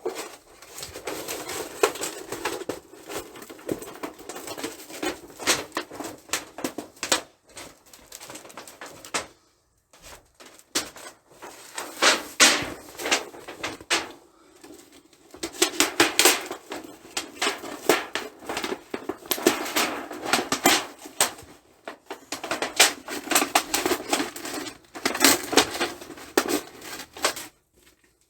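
Small hard objects being handled: a busy run of clicks, rattles and scrapes in bursts, with two short pauses.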